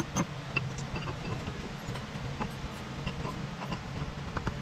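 Scattered light metallic clicks and taps as a camshaft is worked loose and lifted out of a Sea-Doo Rotax engine's cylinder head, over a low steady hum.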